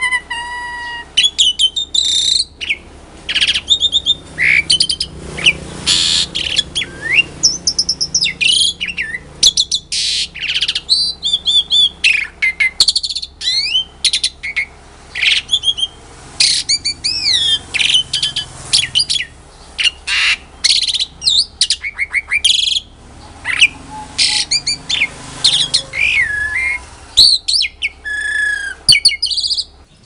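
Asian pied starling (jalak suren) singing a loud, varied song of quick rising and falling whistles, chirps and harsh squawky notes, in short phrases with brief breaks between them.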